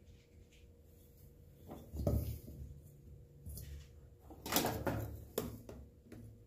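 Handling sounds from an aluminium engine cylinder head being turned and moved on a workbench: a dull thump about two seconds in, then a louder knock and rubbing a couple of seconds later, and a sharper knock just after.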